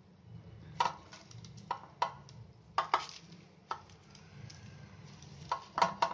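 A spoon knocking and scraping against a pan while thick kalakand mixture is spooned out into a tin: about nine sharp, irregular clinks and knocks, some in quick pairs.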